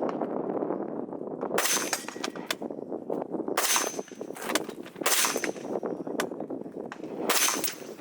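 Four shots from a VHS-2 5.56 mm bullpup rifle, spaced about one and a half to two seconds apart, most followed by the brief high ring of a struck steel target.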